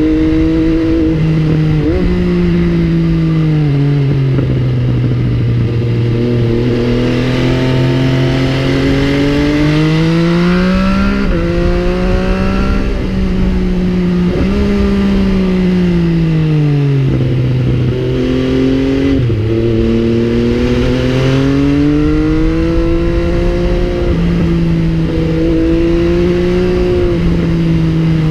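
MV Agusta Brutale 800's three-cylinder engine heard while riding, its revs climbing and falling over and over with abrupt jumps in pitch at the gear changes.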